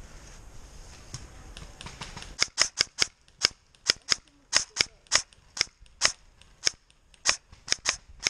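Airsoft gunfire: sharp single cracks in quick, uneven succession, two or three a second, starting about two seconds in.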